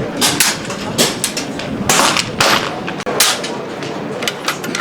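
Several air rifles firing along a shooting line: about a dozen sharp cracks, spaced irregularly and sometimes two or three in quick succession, from different shooters.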